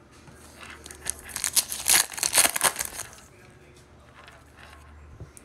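A trading-card pack's foil wrapper being torn open and crinkled, a dense run of crisp crinkling from about one to three seconds in, then faint handling of the cards.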